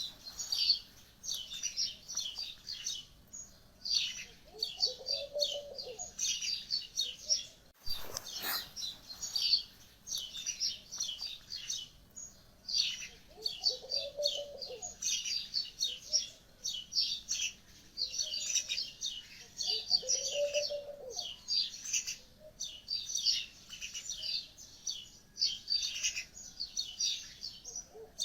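Birds chirping continuously in quick, busy trills, with a lower, rounder call repeating about every six to seven seconds.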